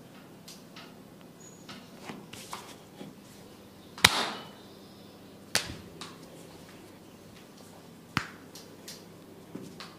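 Sharp percussive slaps of the masseur's hands during a massage. The loudest comes about four seconds in, with two more at about five and a half and eight seconds, and softer taps between.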